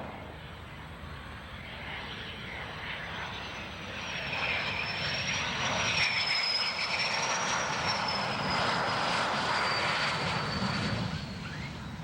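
Aircraft engine running, with a high whine that wavers slowly in pitch over a steady rush; it grows louder about four seconds in and fades near the end.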